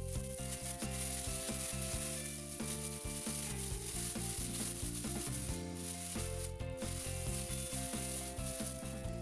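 Plastic bag crinkling and rustling as hands knead and turn it, the salted cucumbers inside shifting about, with a short break a little past halfway. Faint background music underneath.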